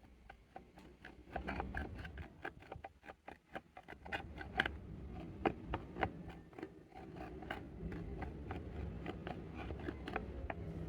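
Clear slime being squished and stretched by hand with makeup worked into it: a run of irregular sticky clicks and pops, thinning briefly about three seconds in.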